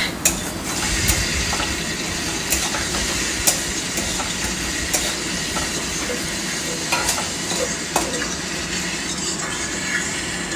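Onions frying in mustard oil in a metal wok, sizzling steadily as they brown. A flat metal spatula stirs them, scraping and tapping against the pan now and then.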